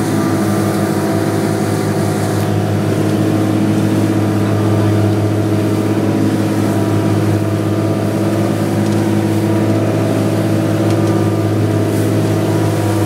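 A fishing boat's engine running steadily under way, a constant low drone, with a hiss of rushing water from the wake over it.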